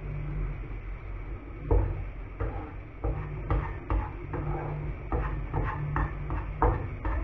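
Wooden spatula stirring diced vegetables in a nonstick frying pan, knocking and scraping against the pan in a dozen or so irregular taps, over a low steady hum.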